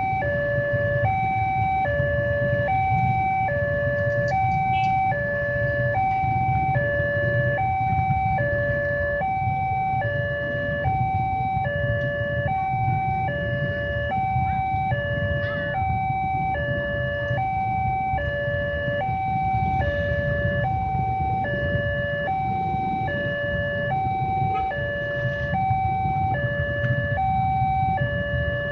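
Railway level-crossing alarm: the electronic two-tone warning from the loudspeaker on the crossing signal post, alternating a higher and a lower tone evenly and without pause, about one high-low cycle every second and a half. It means the barrier is down for an approaching train. A steady low rumble runs beneath.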